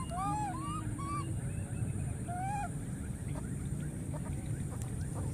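A macaque gives a quick run of short, arching coo calls in the first second or so, then one more about two and a half seconds in, over a steady low rumble.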